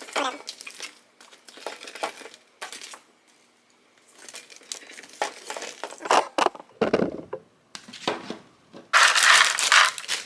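Plastic packaging being handled and crinkled, with scattered rustles and light knocks, and a loud burst of crinkling lasting about a second, about nine seconds in.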